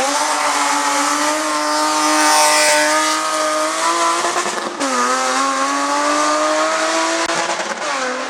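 Race car engine accelerating hard at full throttle, its pitch climbing steadily, then dropping sharply at an upshift about five seconds in and climbing again, with another shift near the end.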